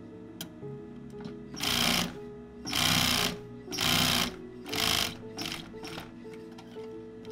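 Industrial sewing machine stitching leather in four short runs of about half a second each, starting about a second and a half in, with a couple of brief stitches just after. Background music plays underneath.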